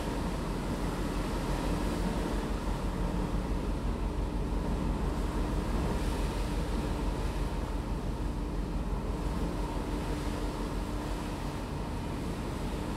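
Passenger ferry under way at sea: a steady engine hum with the rushing wash of water and wind against the microphone.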